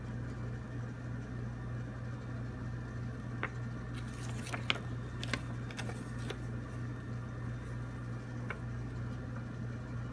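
Steady low hum of room tone, with a few short, faint rustles and ticks of a folded paper instruction sheet being handled, mostly between about three and a half and six and a half seconds in.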